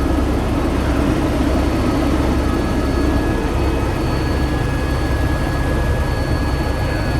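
Helicopter running steadily: heavy, pulsing rotor and engine noise with a thin, steady high whine over it.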